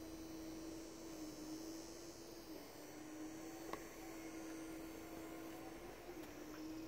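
A faint, steady low hum from an unseen machine, its pitch dipping slightly a few times, with one brief click a little past the middle.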